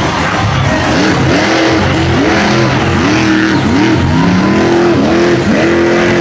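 Monster truck engine revving hard over and over, its pitch climbing and dropping about every half second as the truck spins in the dirt.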